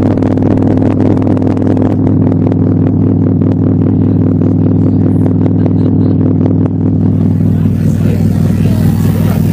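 Loud electronic drone through a live PA: steady low sustained notes with irregular crackles over them. About seven and a half seconds in, a hissing noise layer comes in on top.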